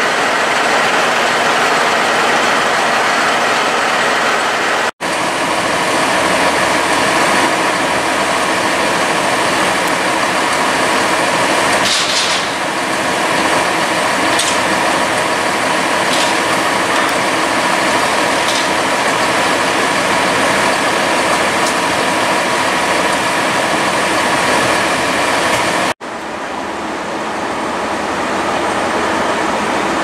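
Fire engine's diesel engine idling with a steady drone, with a short hiss about twelve seconds in.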